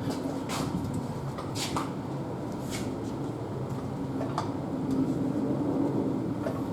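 Steel tire-changer bar and rim clanking as a car tire's bead is worked onto the wheel on a manual tire changer: five or six sharp, irregularly spaced metal knocks over a steady low hum.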